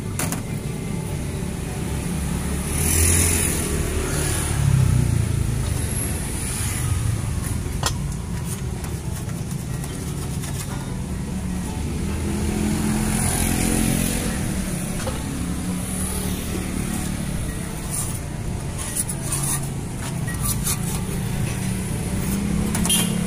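Road traffic: motorcycle and car engines running steadily, swelling a few times as vehicles pass close by, with a few light clicks.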